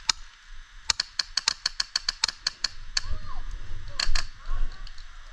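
Airsoft gun firing a quick string of about ten sharp shots, roughly five a second, followed by a few single shots.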